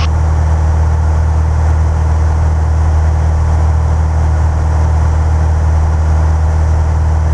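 Piper Cherokee single-engine piston light aircraft's engine and propeller droning steadily at cruise, heard inside the cockpit.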